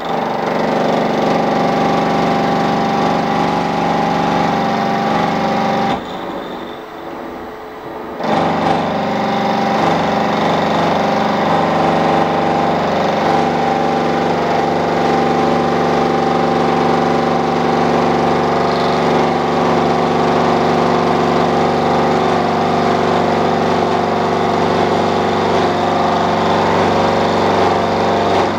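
Milling machine running with its cutter trimming the steel teeth of a 1952 Bentley starter ring gear on a rotary table: a steady machine whine with several tones. It drops away for about two seconds around six seconds in, then picks back up.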